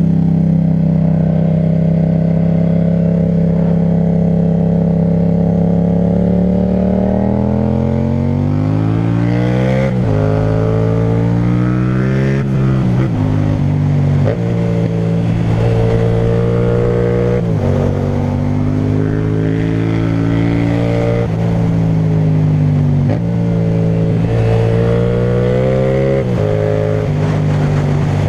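Yamaha MT-07's parallel-twin engine through an Akrapovic titanium exhaust, under way: a steady note for several seconds, then rising in pitch as the bike accelerates, with repeated sudden drops in pitch as it shifts up or rolls off the throttle and pulls again.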